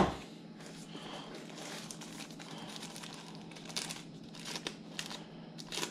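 Thin plastic wrapping crinkling and rustling as it is handled and pulled off a packed item, with a few sharper crackles in the second half.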